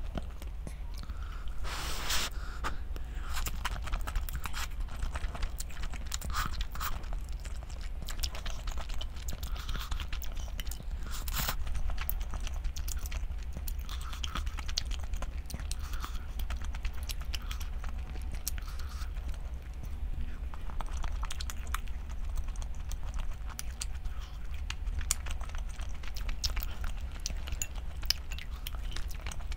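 A person eating close to the microphone: irregular chewing and biting with small crunches and clicks, over a steady low hum.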